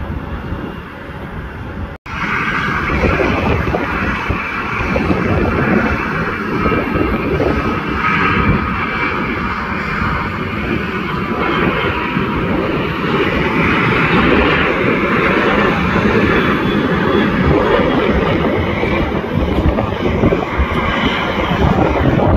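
Boeing 737 airliner's jet engines at takeoff thrust, a loud steady rumbling noise as it climbs away. It follows an abrupt cut about two seconds in from a quieter jet-engine sound of a regional jet taxiing.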